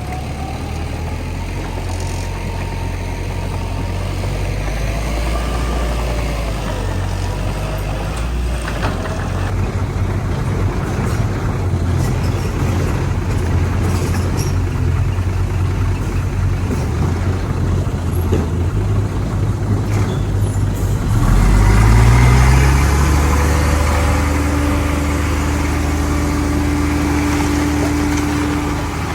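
Heavy diesel earthmoving machinery running steadily with a deep rumble; about two-thirds through an engine revs up sharply and then holds a higher, steady note under load.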